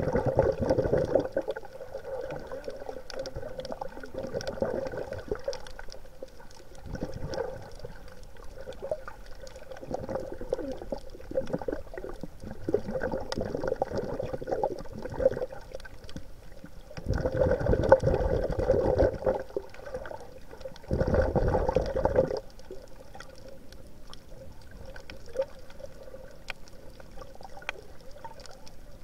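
Underwater bubbling and gurgling that swells in irregular bursts, the two loudest a little past the middle, over a steady watery hiss with scattered faint clicks.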